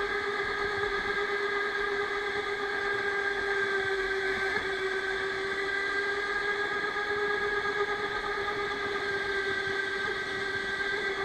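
Electric go-kart's motor whining at a nearly steady pitch while the kart is driven at speed, with road noise underneath.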